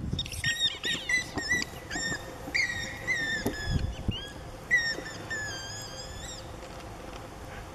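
Dog biting on a squeaky toy ball: a quick run of short, high squeaks, each bending in pitch, that thins out and stops about two-thirds of the way through.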